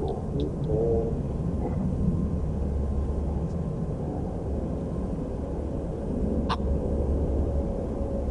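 Low, steady rumble of jet aircraft engines at an airport, with one sharp click about six and a half seconds in.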